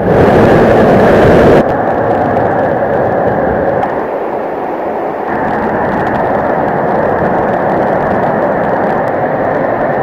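Waterfall water pounding down close to the microphone, a loud, full rushing noise. About one and a half seconds in it cuts to a duller, steady rushing noise that lasts to the end.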